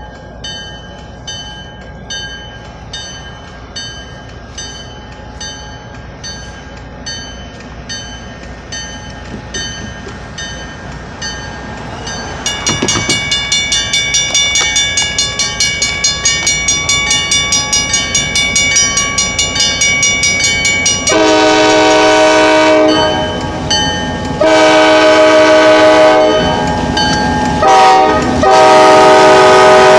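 Railroad grade-crossing bell dinging in a steady rhythm, much louder from about halfway through. In the last third, an EMD GP-9 diesel locomotive's K5LA air horn sounds the grade-crossing signal: long, long, short, long, with the final blast held.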